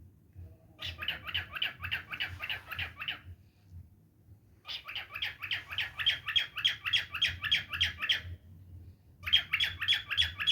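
A pet parrot squawking in rapid repeated harsh calls, about five a second, in three bursts with short pauses between them.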